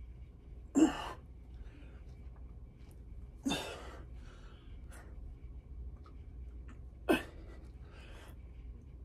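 A man breathing out hard with each rep of single-arm dumbbell lateral raises: three sharp, forceful exhales about three seconds apart, each with a short voiced start, and quieter breaths between them.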